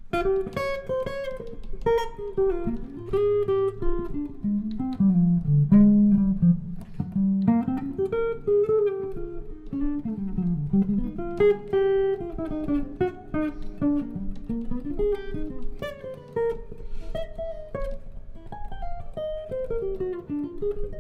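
Archtop guitar played solo: quick runs of plucked single notes climbing and falling up and down the neck.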